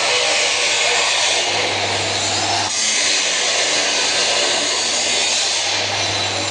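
Angle grinder running under load, its disc cutting metal with a steady, loud hiss over the motor's hum; the sound shifts briefly a little under three seconds in.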